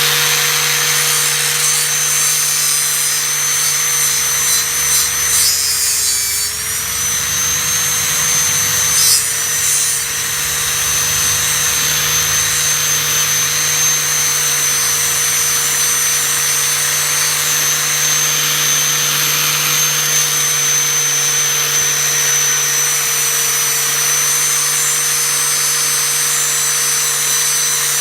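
Loud angle grinder fitted with a wire wheel, running steadily as it scours rust off a steel machete blade. Its motor note dips briefly about six seconds in, as the wheel is pressed harder into the work.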